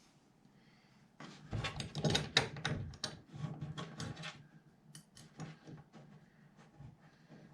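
Metal hinge hardware and hand tools being worked on a door: a burst of rapid clicking and clatter starting about a second in, loudest about two seconds in, then thinning to scattered clicks.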